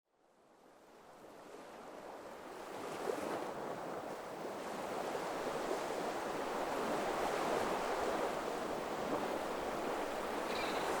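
Ocean waves washing on a shore, a steady surf hiss that fades in from silence over the first few seconds.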